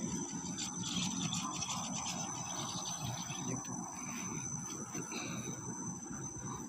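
Outdoor ambience: a steady, high-pitched insect drone, such as a cricket, over a low background rumble.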